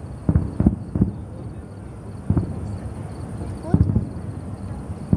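Distant fireworks shells bursting: about five dull booms, irregularly spaced, two close together near the start and a pair near the end.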